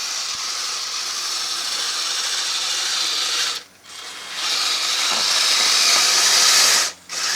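Kyosho Blizzard RC snow tractor's electric motor, gearbox and tracks running as it drives and pushes snow with its blade. It runs for about three and a half seconds, stops briefly, then runs again louder for about two and a half seconds and cuts off near the end.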